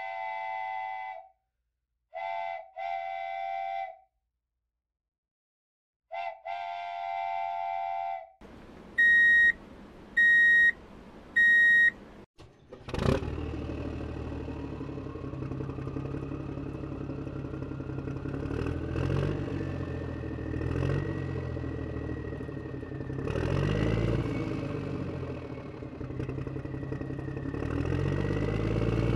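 A steam-train whistle sounding three times, then three short, loud high-pitched beeps. After that a vehicle engine starts up and runs on, its pitch slowly rising, as trucks drive over the crossing.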